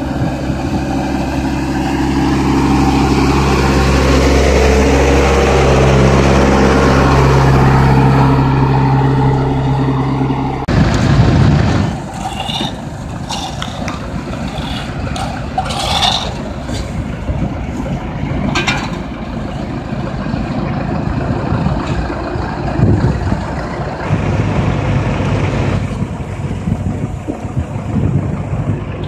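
A truck engine running steadily as the truck drives slowly, spraying the road surface. About eleven seconds in, the sound cuts to a quieter steady hum from an asphalt paver, with short scrapes and knocks.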